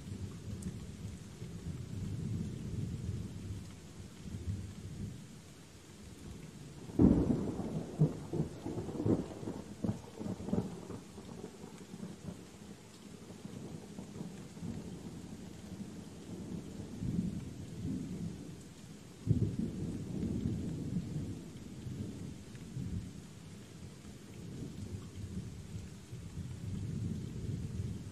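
Steady rain with thunder. A sharp thunderclap about seven seconds in rolls on for several seconds, and a second rumble of thunder breaks out about two-thirds of the way through.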